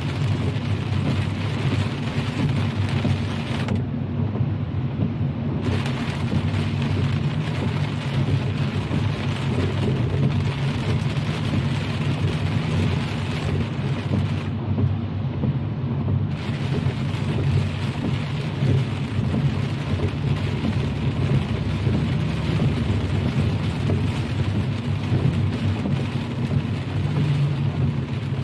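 Rain hitting a moving car, with tyre hiss on the wet road over a steady low road rumble. The higher hiss drops out twice for about two seconds each time, while the rumble carries on.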